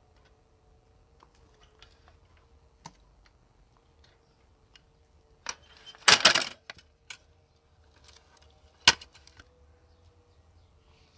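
Stainless steel wire grill basket clattering as its hinged top rack is closed down over raw chicken hearts. There is one loud metal rattle about six seconds in and a single sharp clank near nine seconds, with faint small clicks before them as the meat is placed on the wires.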